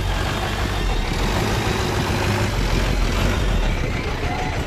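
Truck engine idling with a steady low hum, under the general hubbub of a busy outdoor livestock market.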